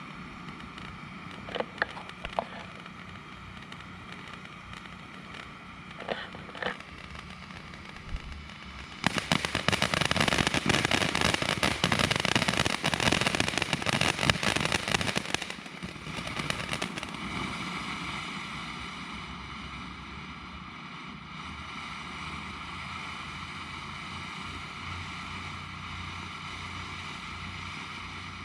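Brothers 'Ecstasy' 200-gram firework fountain burning. A few sharp pops come in the first seven seconds. About nine seconds in, a loud stretch of dense fizzing crackle from its flying fish effect lasts some six seconds, then settles to a quieter, steady hiss.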